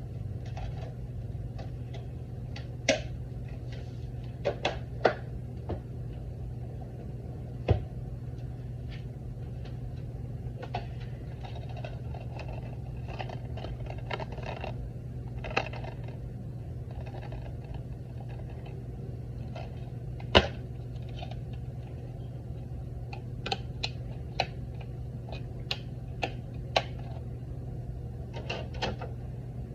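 Blu-ray/DVD player's mechanism: a steady low hum with irregular small clicks and ticks, and a sharper click about twenty seconds in.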